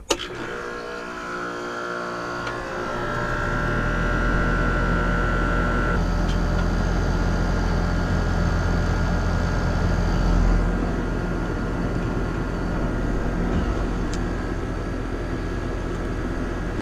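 Newly installed Trane Ameristar heat pump starting up. A click, then it comes up to speed over about three seconds and settles into a steady low hum.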